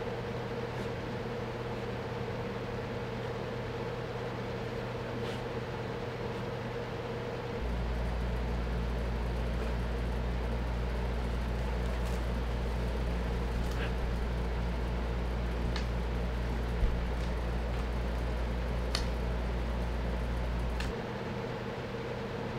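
Steady machine hum in a small room, like a fan or air conditioner. A deeper low drone comes on about seven and a half seconds in and stops about a second and a half before the end, with a few faint ticks and one sharper click in between.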